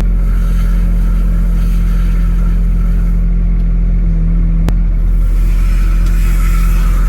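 Tractor diesel engine running steadily with a deep, even drone, and one sharp click about two-thirds of the way through.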